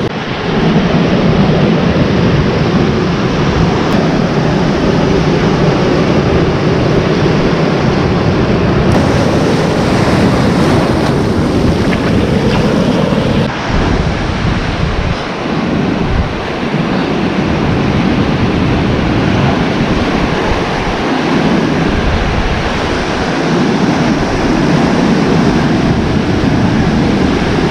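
Ocean surf breaking and washing up a sandy beach, a loud steady rush of waves, with wind buffeting the microphone in gusts.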